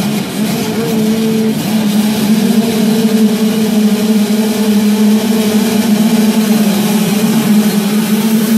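A full start-gate line of motocross bikes revving together at steady high revs, a dense, held engine drone, with the pack pulling away from the gate near the end.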